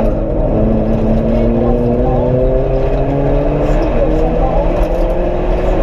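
Peugeot 206 rally car engine heard from inside the cabin, pulling hard under acceleration with its pitch climbing steadily, dipping once around three seconds in and then climbing again.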